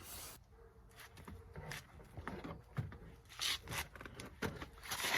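A car seat being worked loose and lifted out of the car: irregular knocks, clicks and scrapes as it is handled free of its mounts.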